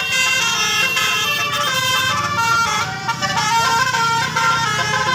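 Indonesian bus 'telolet' musical air horn (basuri) playing a tune of held notes that step up and down in pitch.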